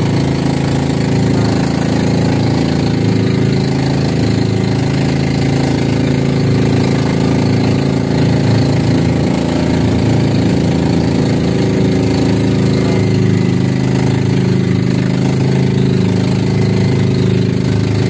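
The engine of a motorized outrigger boat (bangka) running steadily under way, holding an even pitch with no change in speed.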